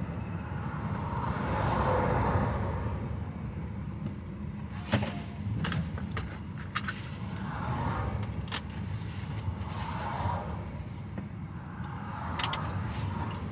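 Steady low drone of a DAF XF truck's engine and tyres heard from inside the cab while driving, with a few soft rushing swells as traffic goes by. Several sharp clicks in the middle and once near the end.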